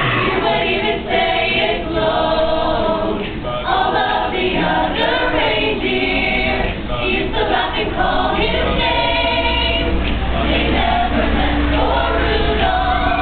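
Choir of young women singing together, one sustained sung passage throughout.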